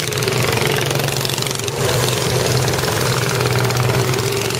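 Small engines of several mini trucks and carts running steadily as they drive past one after another.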